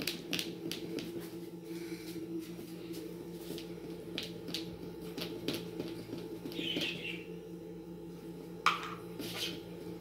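Spoon stirring thick cake batter in a plastic mixing bowl, with irregular clicks and scrapes as it knocks the bowl's side, and one sharper knock near the end.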